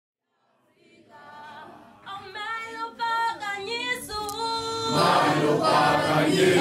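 A group of voices singing unaccompanied, fading in and growing fuller and louder about five seconds in.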